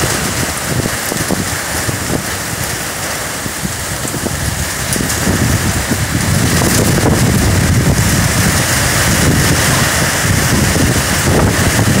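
Heavy rain pouring in a gusting windstorm, with strong wind gusts buffeting the microphone in low rumbles. The gusts grow stronger and louder about halfway through.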